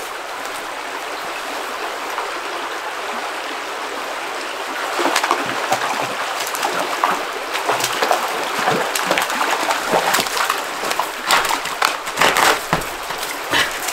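River water flowing steadily. From about five seconds in come irregular splashes, growing busier and loudest near the end, as a hooked rainbow trout thrashes at the surface while it is landed.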